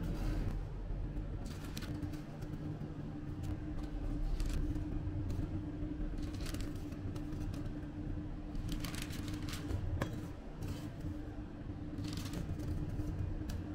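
A steady low rumble with a faint hum throughout, overlaid by short rustles and clicks as a metal spatula lifts pizza toasts off a mesh screen and paper wrappers are handled. There is one sharp click about ten seconds in.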